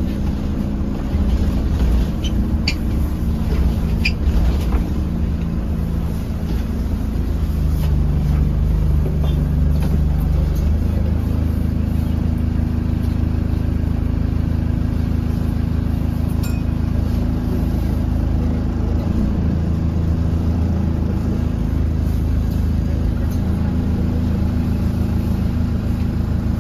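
Diesel engine of a Metroline DEL-class double-decker bus, heard from inside the passenger saloon as the bus drives along. The engine drone is steady, and its note shifts a couple of times as it changes speed or gear.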